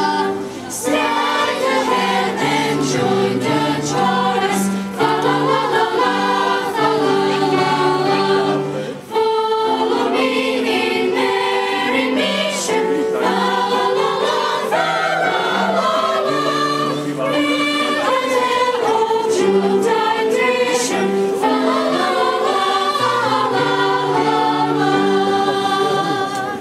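Choir singing a song in held, changing notes, ending just at the close.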